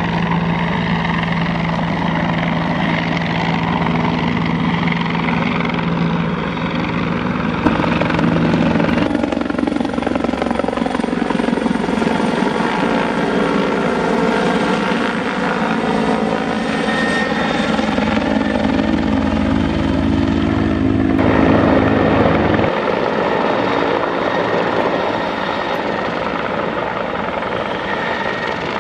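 Bell 412 twin-engine helicopter with a four-blade main rotor flying past overhead: steady rotor thudding and turbine noise, with a phasing sweep in the middle of the pass as it goes over and away.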